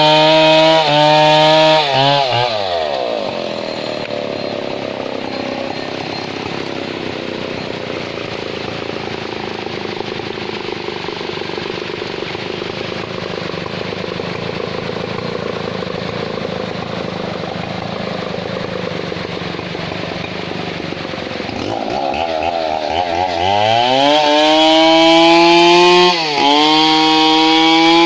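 Big Stihl 070 two-stroke chainsaw at high revs, winding down after about two seconds to a quieter low-speed run. About twenty-two seconds in it revs back up to high speed, with a brief dip in revs a few seconds later.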